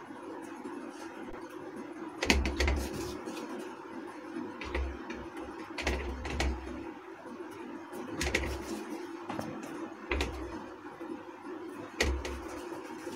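Hands pinching and rolling soft dough into balls over a steel plate, with irregular soft knocks and clicks every couple of seconds as dough balls and the plate are handled, over a steady low hum.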